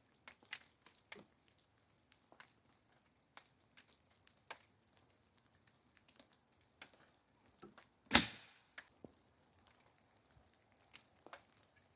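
Faint, scattered ticking and pattering of light rain drops, with one sharp, loud bang about eight seconds in that dies away quickly.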